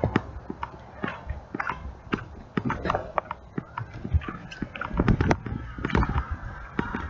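Irregular knocks, clicks and rustles of a handheld camera being moved and gripped close to the face.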